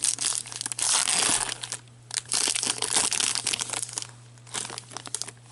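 Plastic wrapping on a trading card box and pack crinkling and tearing as it is pulled open and handled by hand, in two long stretches of about two seconds each and a shorter burst near the end.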